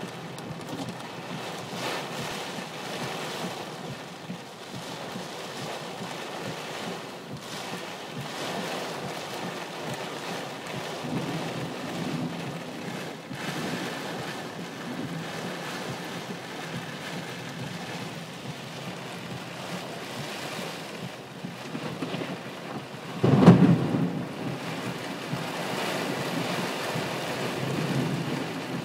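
Heavy rain pouring down in gusty wind during a severe thunderstorm, a steady rushing hiss, with one sudden loud clap of thunder about three-quarters of the way through.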